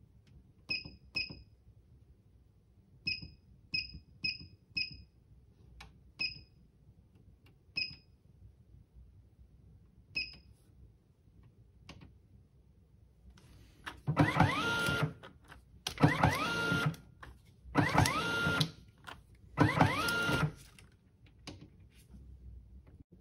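Desktop label printer: its control-panel button beeps nine times, single and in quick runs, as it is pressed. The feed motor and print mechanism then run in four bursts of about a second each, printing and feeding out numbered labels one at a time, with a whine that rises in pitch at the start of each burst.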